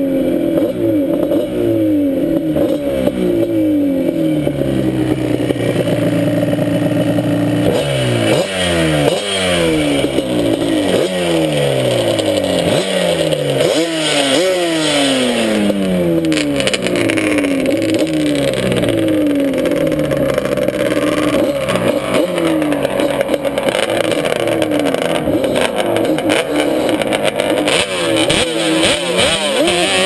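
ATV engine heard from on board the quad while it is ridden across sand: fairly even revs at first, then from about eight seconds in the revs climb sharply and fall away over and over as the throttle works.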